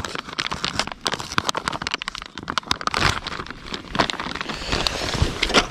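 Plastic soft-bait packet crinkling and crackling in the hands as a soft plastic worm is pulled out of it, a rapid run of sharp crackles.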